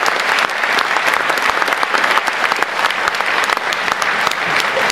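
A large audience applauding, a dense, steady sound of many hands clapping.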